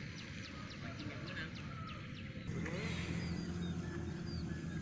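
Outdoor ambience with small birds chirping: a quick run of short high chirps at first, then scattered chirps. About halfway a steady low hum comes in.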